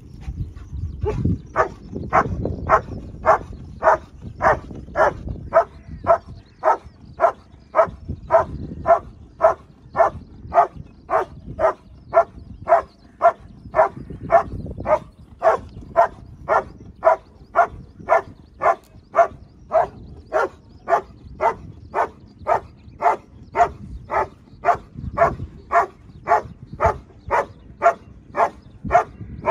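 German Shepherd barking steadily and rhythmically, about one and a half barks a second, starting about a second in. It is the hold-and-bark at the blind in a protection trial, where the dog holds the helper in place by barking. Low gusts of wind rumble on the microphone now and then.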